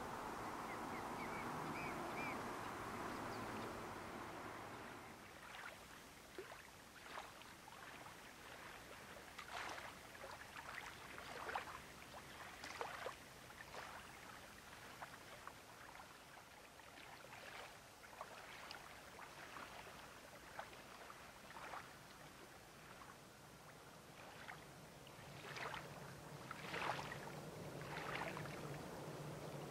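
Small waves lapping at the lakeshore, a faint wash at first and then short, irregular splashes. Near the end a low, steady rumble from a distant train running along the far shore comes in under the water sounds.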